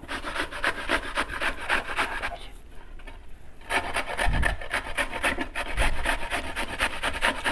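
Peeled raw green mango rubbed back and forth on a flat stainless steel grater: quick, even rasping strokes, pausing for about a second near the middle.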